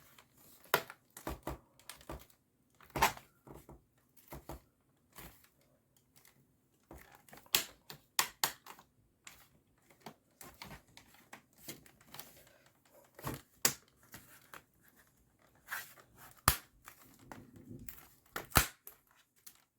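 Plastic screen bezel of a Dell Inspiron 15 laptop being pressed onto the display, its little plastic clips and tabs snapping into place. The result is a string of irregular sharp clicks and snaps with some light crinkling, spaced a second or so apart.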